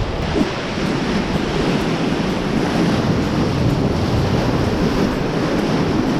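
Steady rush of white-water river rapids around a raft, with wind buffeting the microphone.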